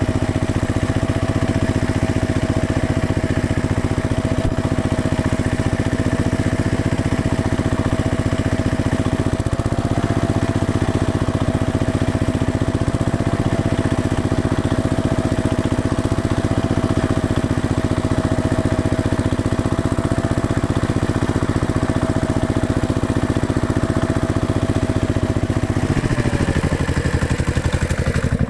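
Farm tractor engine running steadily, its pitch dropping a little near the end as the engine slows.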